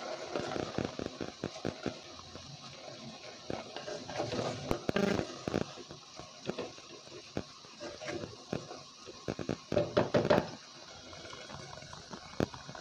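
Wooden ladle stirring cooked dal, spinach and water in a clay pot: wet sloshing with frequent knocks and scrapes of the ladle against the pot, in louder flurries about five and about ten seconds in.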